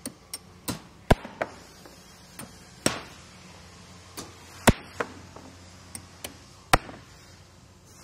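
Construction-site tool work: irregular sharp knocks and strikes, about a dozen in all, the four loudest roughly two seconds apart, over a faint low hum. No drill is running in this stretch.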